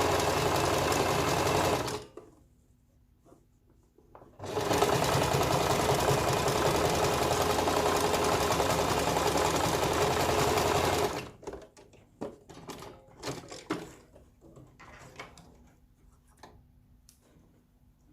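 Sewing machine running as it stitches a hair weft onto a mesh wig cap. It stops about two seconds in, starts again a couple of seconds later and runs steadily for about seven seconds, then stops, leaving a few light clicks and knocks.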